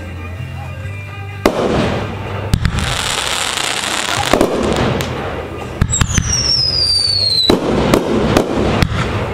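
A 500-gram consumer firework cake firing shell after shell: sharp launch thumps and bursts, with crackling in between. About six seconds in, a high whistle glides down in pitch for about a second and a half.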